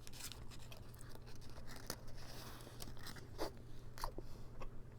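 A cheese tart being bitten into and chewed close to the microphone, its pastry crust crunching in scattered crisp crackles.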